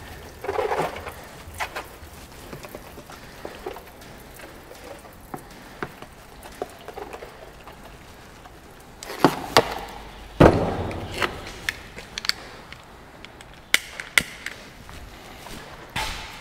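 Charcoal lighter fluid being squirted from a squeeze bottle onto briquettes in a steel barrel grill, amid scattered clicks and handling knocks on the grill. Two loud knocks a second apart near the middle, the second ringing briefly.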